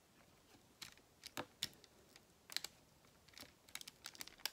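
Faint, irregular clicks and taps of a diamond-painting drill pen picking round drills from a plastic tray and pressing them onto the canvas, about fifteen in a few seconds.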